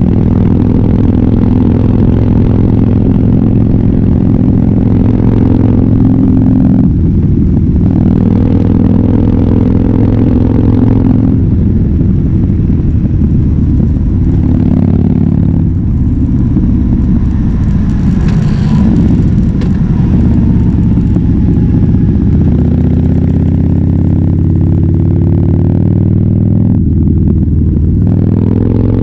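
Harley-Davidson Fat Bob's V-twin engine through a KessTech ESM3 exhaust, riding: it pulls through the gears with short breaks at the shifts, eases off for a while, then accelerates with the pitch rising steadily near the end.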